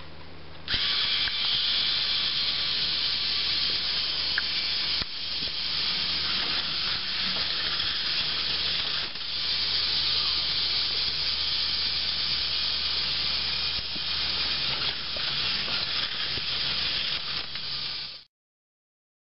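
K'NEX roller coaster running: the motorized chain lift and plastic coaster cars rolling over the plastic track make a steady rattling whir. It starts abruptly about a second in and cuts off sharply near the end.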